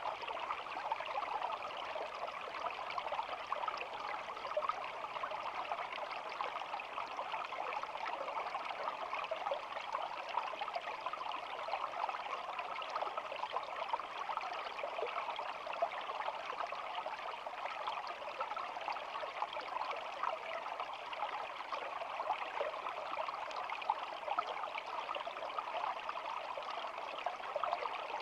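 Shallow stream flowing and babbling steadily, a continuous trickle of water with no pauses.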